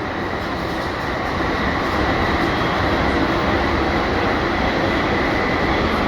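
London Underground Jubilee Line 1996 Stock train running through a tunnel, heard from inside the car: steady wheel-on-rail and tunnel noise with a faint high whine, growing slightly louder about a second and a half in.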